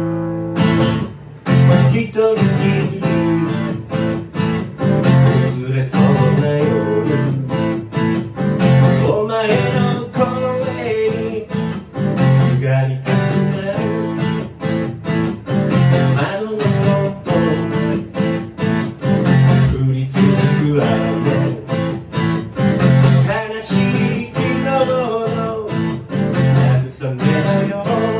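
Acoustic guitar strummed in a steady rhythm: live music.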